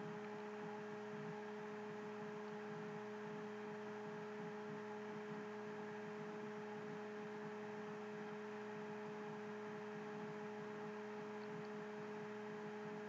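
Faint steady electrical hum, a few even tones over a light hiss, with no other sound.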